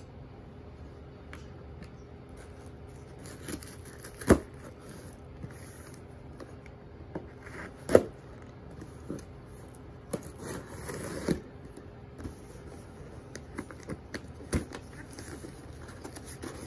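Cardboard shipping box being handled and cut open: two sharp knocks about four and eight seconds in, a rasping stretch of about a second as the packing tape is cut, then light clicks and rustling as the flaps are opened.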